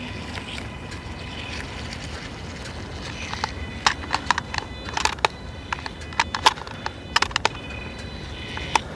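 Small electric drive motors of a mini amphibious RC car whining in short spurts as it is driven on its amphibious wheels. From about three and a half seconds in there is a run of sharp clicks and taps.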